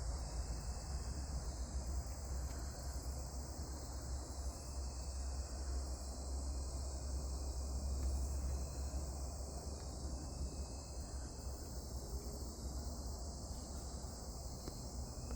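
Steady outdoor chorus of crickets and other insects, a continuous high chirring, over a low rumble.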